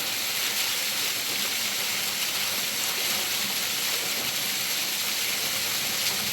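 Steady rushing hiss of flowing river water, even and unbroken.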